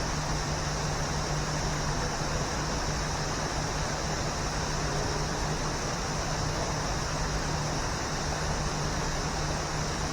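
A waterfall rushing in a steady, unbroken hiss of falling water, with a faint steady low hum underneath.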